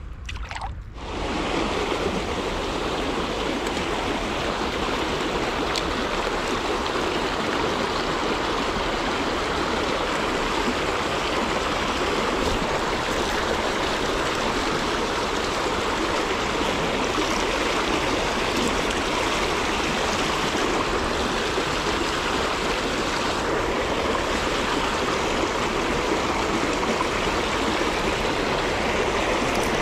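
Shallow river rapids rushing steadily over rocks, coming in loudly about a second in.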